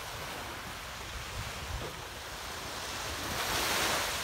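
Sea surf on a beach: a steady hiss of waves that swells into a louder wash near the end.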